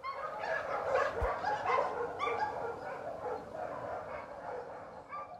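Many dogs barking and yelping at once, a dense shelter-kennel chorus of short, overlapping calls.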